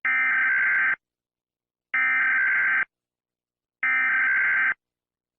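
US Emergency Alert System alarm: three bursts of digital data tones (the SAME header), each just under a second long with about a second of silence between them.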